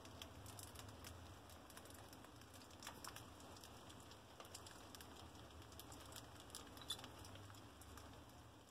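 Faint, scattered light clicks and scratches of a crowd of mice scurrying over tile and cloth, over a steady low hum.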